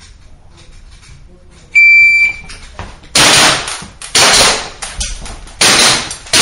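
Electronic shot timer gives its start beep, then a shooter fires a string of five shots a little under a second apart.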